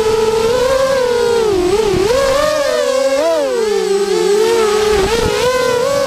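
Motors and propellers of a Lumenier QAV250 FPV racing quadcopter whining, the pitch rising and falling constantly with the throttle, at times splitting into several pitches as the motors run at different speeds.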